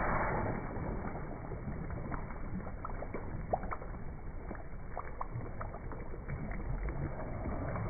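Pool water splashing and lapping around swimmers. A louder wash of splashing fades in the first half second, then small splashes and drips tick over a steady low rumble.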